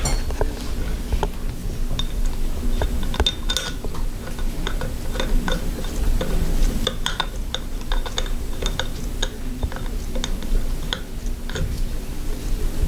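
Irregular light metallic clicks and ticks of a cut-down 6 mm Allen key in a socket being turned by hand, threading the damper-tube bolt into the bottom of a motorcycle fork slider.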